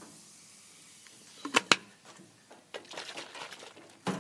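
Hard plastic water bottle knocked twice, then a stretch of crackling fizz and splatter as baking soda and vinegar foam spills out of it, ending in a dull thump.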